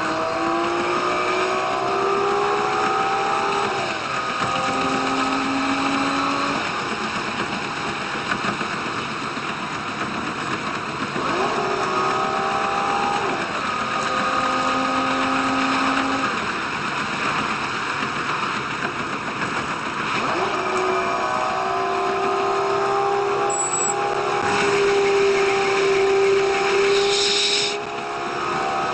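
Diesel railcar running along the line: engine and drive tones that rise and shift to new pitches every few seconds over steady running noise.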